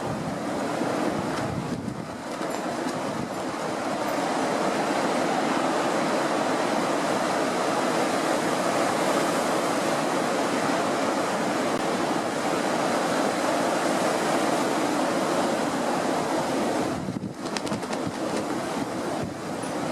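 Steady rush of strong wind and lake waves, with wind buffeting the microphone.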